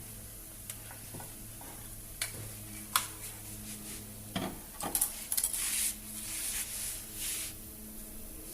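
Workshop work sounds: a few sharp metal clinks, then several short bursts of hissing crackle a little past the middle, over a steady low hum.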